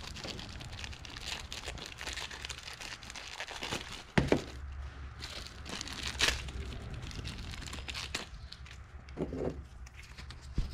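Thin plastic packaging bag crinkling and rustling as it is handled, with a couple of sharp clicks about four and six seconds in.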